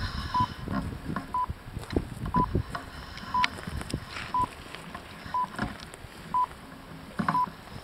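Electronic race countdown timer sounding a short, single-pitch beep once a second, eight times: the ticking-off of seconds in the final minute of a model yacht race.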